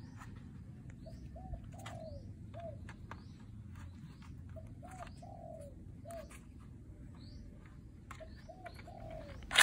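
Doves cooing in short repeated phrases, over light plastic clicks from a foam-dart toy blaster being handled and loaded. One sharp loud click from the blaster comes near the end.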